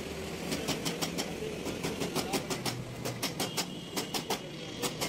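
Short runs of quick, sharp clicks as a screwdriver backs screws out of a plastic car headlight housing, over a steady low hum.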